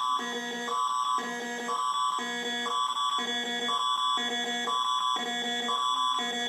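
Canadian Alerting Attention Signal of the Alert Ready system: an electronic alert tone that switches back and forth between two chords about every half second, with one high tone held throughout. It announces an emergency alert, here an Ontario Amber Alert.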